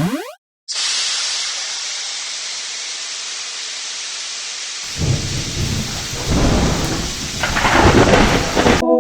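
Thunderstorm sound effect: steady heavy rain, joined about five seconds in by rolling thunder that swells and is loudest near the end, then stops abruptly. It opens with a short rising tone.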